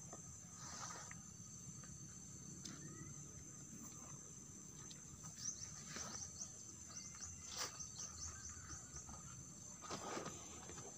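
Faint, steady, high-pitched chorus of insects in the evening outdoors. Over it come intermittent rustles and crackles, and a quick run of short chirps about midway.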